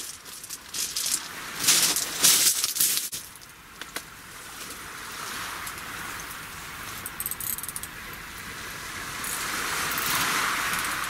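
Rustling and clinking of fishing tackle being handled for about the first three seconds, then a steady wash of sea surf on the shore that swells near the end.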